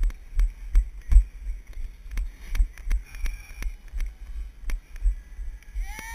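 Running footfalls on a dirt trail, heard through a body-worn action camera: a steady run of low thumps, about three a second, as the camera jolts with each stride.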